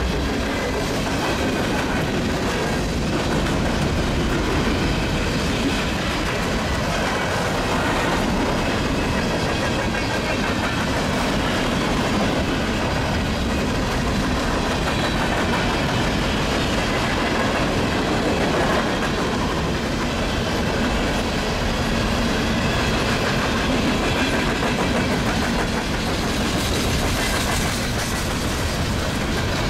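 Empty coal train rolling past: the steady noise of steel wheels running on the rails as the empty coal cars go by.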